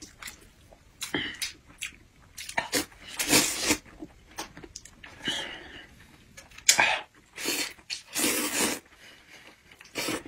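Noodles being slurped from a bowl with chopsticks: several sharp, noisy slurps a few seconds apart, the longest about a third of the way in and around eight seconds in, with quieter chewing between.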